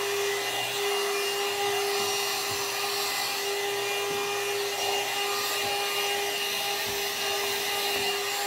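One-step hair dryer and styler (hot-air brush) running steadily on its low setting: a constant-pitched motor hum over a rush of air.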